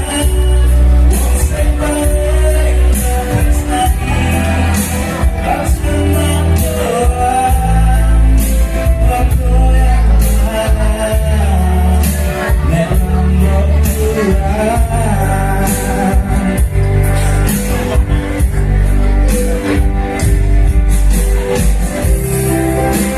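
Loud music with a heavy, pulsing bass beat and a voice singing the melody over it.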